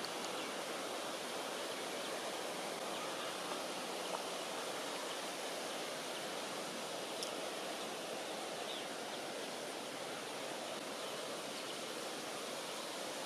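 Steady, even outdoor background hiss with no clear source, broken by a few faint, brief high ticks.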